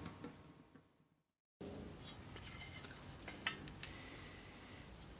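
Tail of rock intro music fading out, then after a brief silence faint light clicks and taps of hand work: a wooden handle blank and a marker pen being handled against a steel sword tang.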